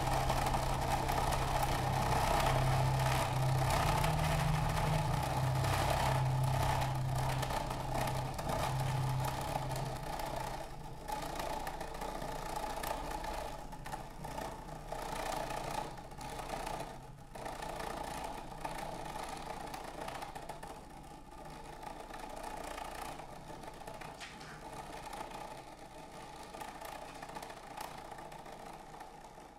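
Electroacoustic music played over loudspeakers: a low steady drone under a grainy, noise-like texture with faint flickering detail. The drone stops about ten seconds in, and the remaining texture gradually fades down.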